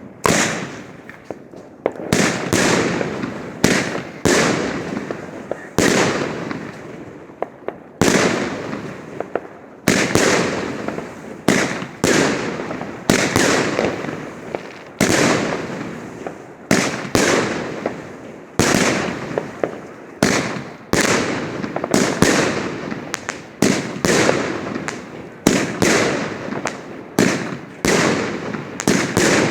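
Triplex TXB091 firework cake firing: loud bangs in quick succession, roughly one a second, each dying away over about a second before the next.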